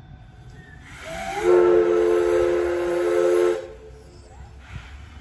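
Steam whistle of the C12-class tank locomotive No. 66 blown once, a blast of about two and a half seconds that slides up in pitch as it opens, holds steady, then cuts off sharply.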